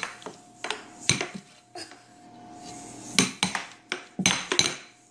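Air hockey puck clacking against plastic mallets and the table's rails in quick, irregular hits, with a faint steady hum underneath.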